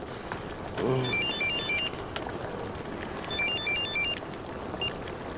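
Mobile phone ringtone for an incoming call: a short electronic melody of quick beeping notes, repeating about every two seconds.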